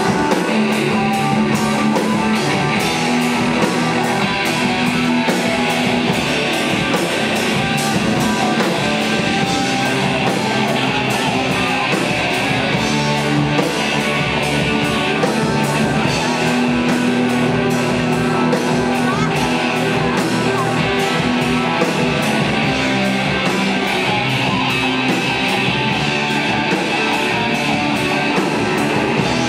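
Live goth-metal band playing loud, distorted electric guitars over a steady drum beat.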